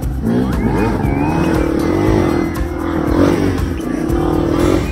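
Honda XR250 dirt bike's single-cylinder four-stroke engine revving up and down over and over as it rides a trail, under background music with a whistled tune.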